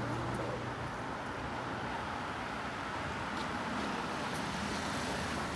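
A car, an Audi SUV, drives slowly up a narrow town street and past. Its tyre and engine noise grows louder as it nears, about three to four seconds in.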